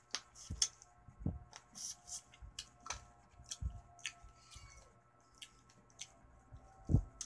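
Close eating sounds of a person eating by hand: repeated wet smacks and clicks of mouth and fingers on food. A single low thump just before the end is the loudest sound.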